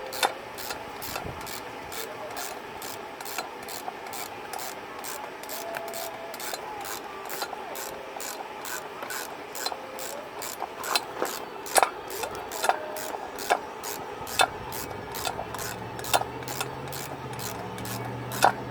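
Hand ratchet wrench working on bracket bolts, a steady run of rasping clicks about three a second, with a few louder metal clinks in the second half as tools knock against the engine.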